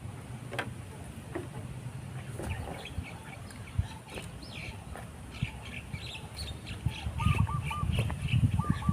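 Small birds chirping and twittering, with a quick run of four short call notes near the end. A low rumble under them grows louder in the last two seconds.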